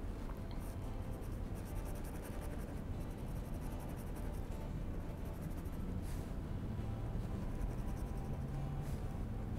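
Fine-tip ink pen scratching on paper in quick, short hatching strokes, with a couple of longer strokes about six and nine seconds in. A steady low hum runs underneath.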